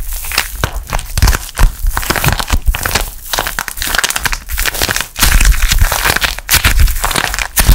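Dried plaster clay shell cracking and crunching as it is squeezed by hand over soft foam clay, many small sharp cracks in quick succession. From about five seconds in, duller squishing of the soft clay being kneaded with the broken pieces.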